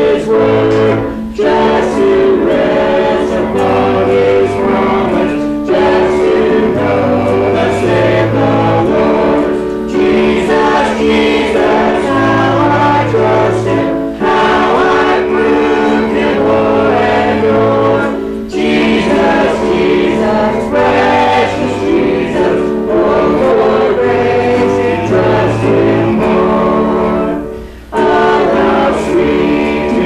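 A congregation singing a hymn together, with held chords and a low bass line beneath, in phrases separated by short breaths.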